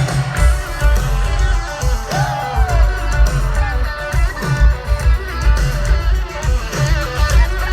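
Live band music led by guitar, over a heavy bass and drum hits.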